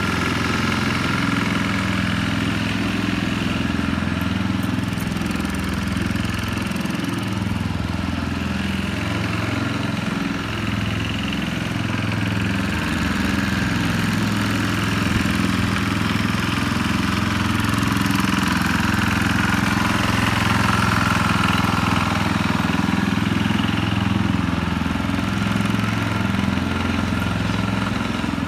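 Single-cylinder Tecumseh HH120 engine of a 1968 Sears Suburban 12 garden tractor running steadily, its pitch wavering slightly.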